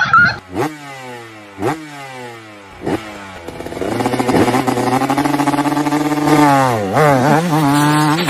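Small motor scooter engine revved in three quick throttle blips, each falling back, then held at high revs with a brief dip near the end.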